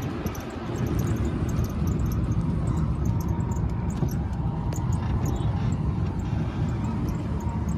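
Auto-rickshaw engine running with road noise, heard from inside the open cabin as it drives along: a steady low rumble.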